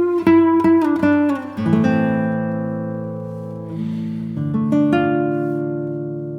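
Background music on guitar: quick plucked notes for the first second and a half, then long ringing chords that slowly fade, with a new chord struck about two-thirds of the way in.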